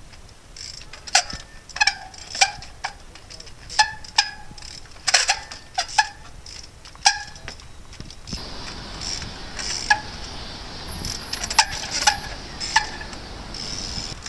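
A trials bike's tyres and frame striking concrete as it is hopped from block to block: a run of sharp clacks with a brief ring, one to two a second at uneven spacing. After about eight seconds a steady hiss comes in and the strikes thin out.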